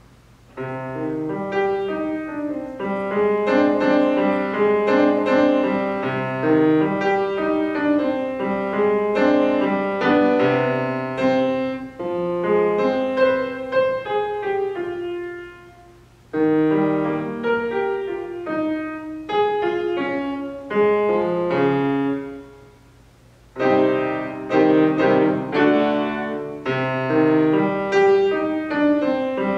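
Grand piano played solo: phrases of notes and chords starting about half a second in, with two short breaks in the playing partway through.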